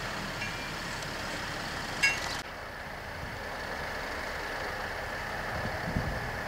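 Milk tanker truck's diesel engine running steadily at low revs, with a brief high-pitched tone about two seconds in.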